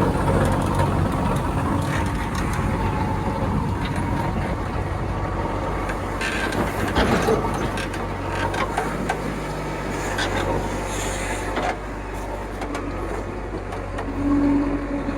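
Heavy diesel machinery engine running steadily, with a burst of knocks and rattles around six to seven seconds in.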